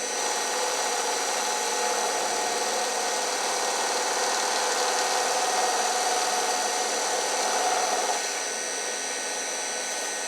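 Milling machine running with an end mill cutting metal, a steady machine sound with constant high whining tones. About eight seconds in, the sound eases slightly.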